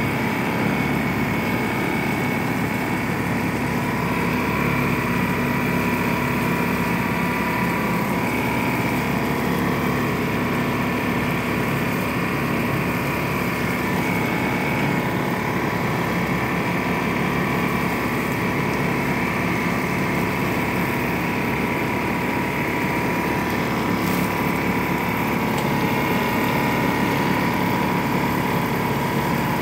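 Garden hose spraying a stream of water onto shrubs, under a steady motor-like drone with a constant whine that holds unchanged throughout.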